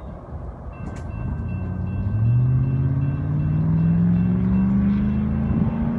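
Approaching CSX diesel locomotives on the main line: a low rumble growing louder, with an engine drone that climbs steadily in pitch from about two seconds in.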